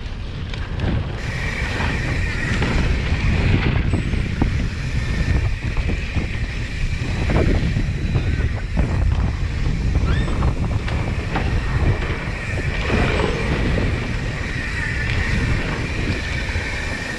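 Mountain bike ridden fast over a dirt trail: wind buffeting the microphone over the rumble of the tyres, with a few knocks and rattles from the bike. A steady high whine runs through most of it.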